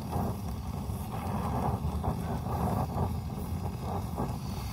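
Brazing torch flame burning steadily on a copper refrigerant line joint, a continuous rushing noise strongest at the low end.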